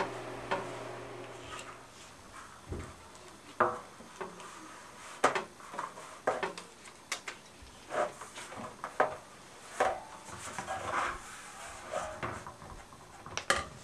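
Vinyl chrome tape being pulled off its roll and pressed and rubbed by hand onto a painted satellite dish: scattered crackles, rubs and small knocks at irregular intervals.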